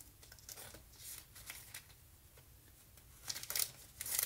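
Cut paper and cardstock pieces rustling and sliding as they are taken out and handled, with a cluster of louder rustles near the end.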